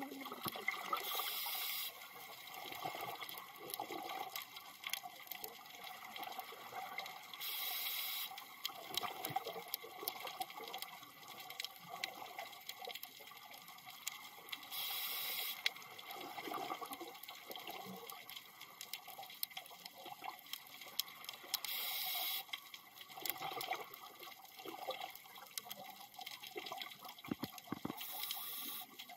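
Scuba diver breathing through a regulator underwater: five bubbly exhalations about seven seconds apart, each lasting under a second, over a constant crackle of clicks.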